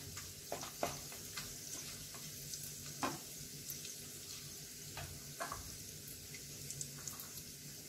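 Whole spices and bay leaves frying in a little hot oil in a nonstick kadhai, a faint steady sizzle with a few scattered clicks and pops.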